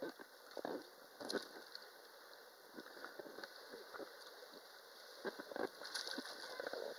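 Faint small splashes and lapping of shallow sea water around an inflatable rubber ring as a child shifts in it, with a few brief sharper splashes, the loudest about a second and a half in and again near the end.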